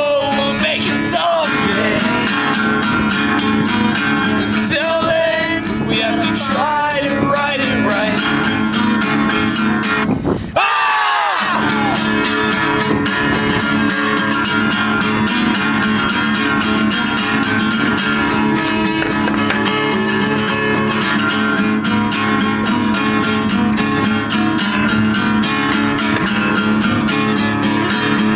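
Acoustic guitar strummed steadily while several voices sing along, the singing strongest in the first part. The sound breaks off briefly about ten seconds in, then the strumming carries on with less singing.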